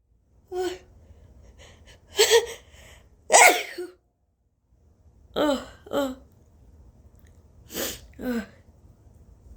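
A woman sneezing twice in quick succession, about two and three and a half seconds in, followed by several shorter breathy vocal sounds. The sneezes are forced by tickling the inside of her nostril with a rolled-up tissue.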